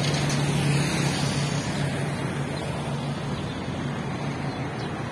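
A motor vehicle's engine running with a steady low hum, slightly louder in the first second, under a broad wash of street noise.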